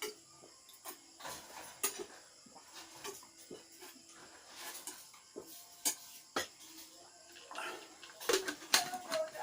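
Eating sounds: chewing and lip smacks with scattered short clicks, likely from utensils or a plate, louder and busier near the end.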